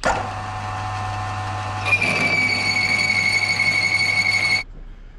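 Milling machine running with a boring head cutting a clearance hole in a steel plate. About two seconds in, a high-pitched squeal from the cut joins the steady machine hum, sinking slightly in pitch, and the sound stops suddenly near the end.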